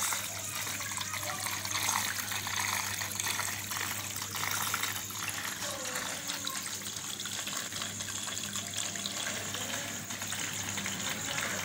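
Water gushing and splashing from a small submersible pump's jet into a plastic tub of water, over the pump's steady low hum.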